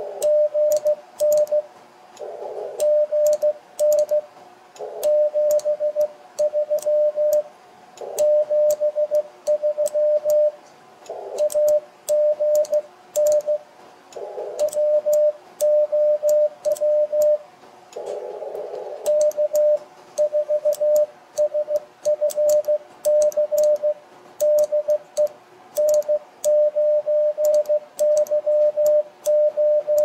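Morse code (CW) sent on a hand key: a steady beep of about 600 Hz switches on and off in dots and dashes, each element with a crisp click from the key's contacts. In the gaps between words the receiver's narrow-filtered band noise hisses briefly. In the second half the operator is sending the sign-off "GN 73 73".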